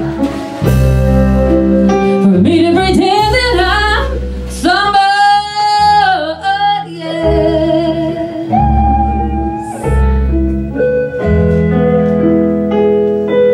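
Live band music: a woman singing long held notes with a wavering vibrato over electric keyboard and band accompaniment.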